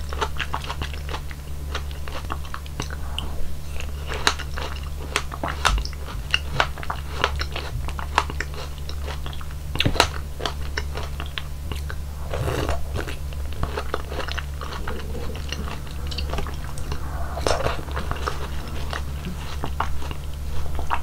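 Mouth sounds of eating fruit hwachae (Korean fruit punch) from a wooden spoon: chewing soft fruit in syrup, with many quick, wet clicks. A steady low hum lies underneath.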